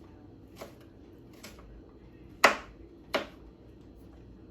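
Kitchen knife cutting red bell peppers on a cutting board: four separate chopping knocks, the third the loudest.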